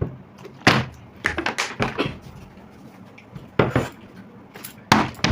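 A scattered series of short, sharp knocks and clatters of things set down and handled on a table, like plates and utensils. There are about eight of them, the loudest about a second in and near the end.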